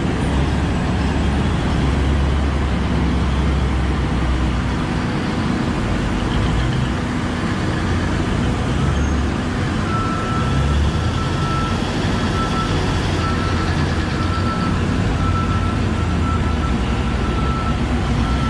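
Heavy diesel engines of a mining haul truck and a Liebherr hydraulic excavator running with a steady low rumble. From about halfway the haul truck's reversing alarm beeps repeatedly at one high pitch as the truck backs into loading position.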